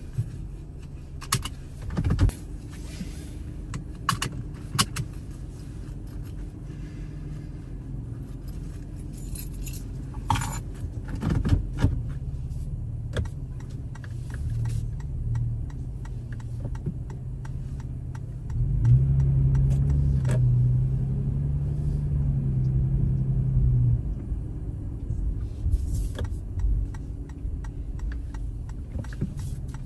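Car moving slowly, with a steady low engine and road rumble and scattered light clicks and rattles. The engine hum grows louder about two-thirds of the way through, for some five seconds.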